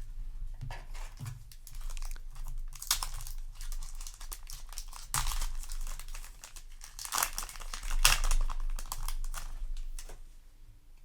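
Foil Yu-Gi-Oh! booster pack wrapper crinkling and tearing as it is opened, in several irregular bursts of rustling, the loudest about eight seconds in.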